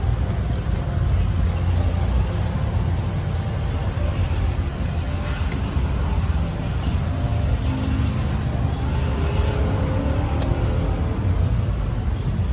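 Steady low rumble with faint voices in the background and a sharp click about ten seconds in.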